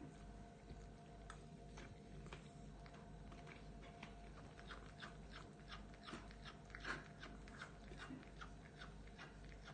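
Cat chewing and biting food: faint, irregular clicks and smacks, coming thicker a few seconds in.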